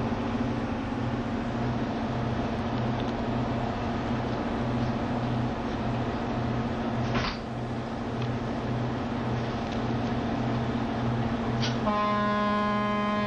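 A ferry's engines droning steadily inside the passenger cabin, with a low hum and a rhythmic throb. Near the end a loud horn-like tone, rich in overtones, starts up and holds.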